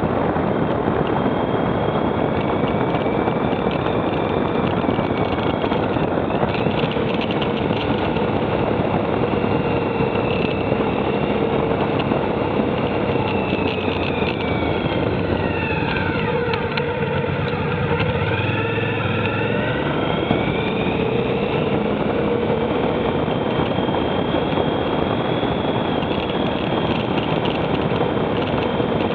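Motorcycle engine running steadily at cruising speed, with wind rushing over the microphone and the engine note rising and falling a little. About halfway through, an oncoming car passes with a brief whooshing sweep.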